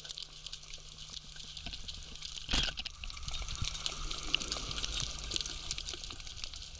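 Underwater: a steady patter of small clicks and crackles from the surge, mixed with the crunching of a white seabream's jaws crushing shells and crustaceans. About two and a half seconds in, one sharp loud snap from a speargun firing.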